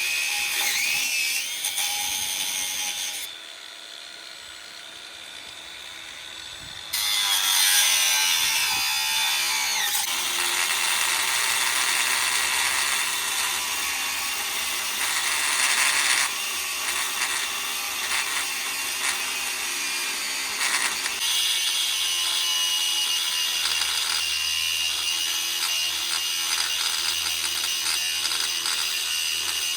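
Bauer 20V brushless cordless angle grinder with a cut-off wheel cutting through steel, a loud high-pitched grinding whine. It stops about three seconds in and starts cutting again about four seconds later.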